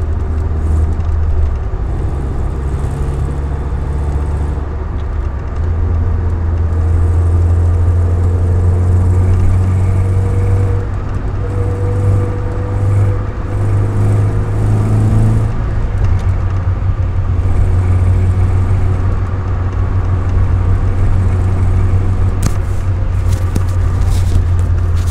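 Toyota AE86's 4A-GE four-cylinder engine running, its revs rising and easing as the throttle is feathered, with a ticking that the owner suspects is an exhaust manifold or extractor leak.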